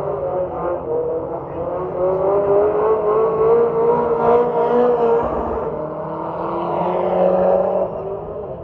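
Autograss race car engines revving hard as a car races past close by. The engine note climbs and is loudest a few seconds in, eases off, then climbs again near the end.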